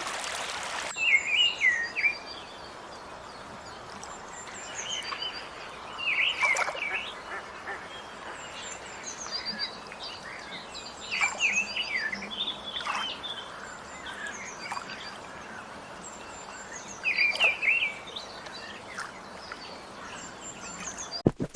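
Birds calling in repeated clusters of quick chirps that bend up and down in pitch, with louder flurries several times over.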